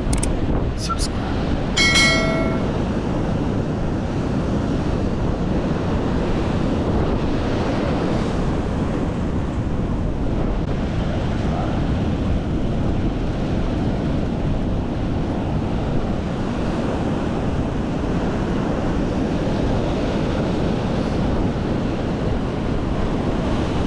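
Ocean surf breaking and washing over shore rocks, a steady low rush with wind buffeting the microphone. A few clicks and a short ringing tone come about two seconds in.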